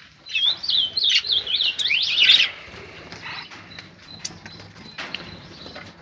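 Small songbirds in a mixed aviary chirping and twittering: a busy run of quick, high chirps through the first two and a half seconds, then only a few scattered calls.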